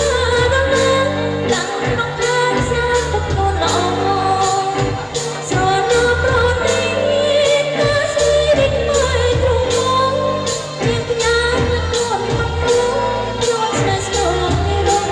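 Khmer dance music: a singer's voice over a band with a bass line and a steady beat of about two strokes a second.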